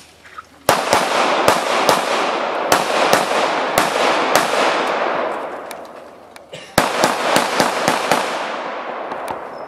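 Semi-automatic pistol fired in rapid strings of shots, often in quick pairs, each shot trailing off in echo. The shooting starts about a second in, eases off briefly past the middle, then resumes in a second fast run.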